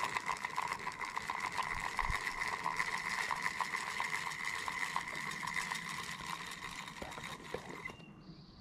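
Fishing reel being cranked to retrieve the line: a steady gear whir with rapid clicking, which stops about eight seconds in.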